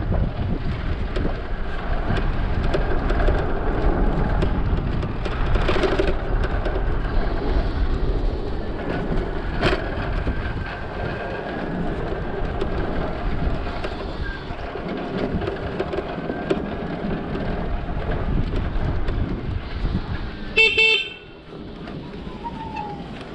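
Steady wind and road noise while riding an electric bike through traffic. A single short vehicle horn beep sounds near the end, louder than anything else.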